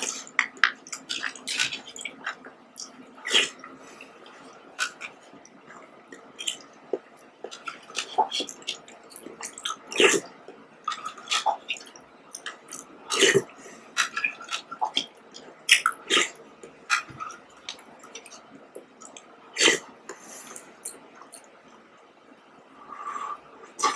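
Close-up wet eating sounds of fruit jelly: a spoon scraping in a thin plastic cup, jelly squishing and being sucked off the spoon, and chewing, heard as scattered sharp wet clicks and smacks. Near the end, a slurp as the last of the juice is drunk straight from the cup.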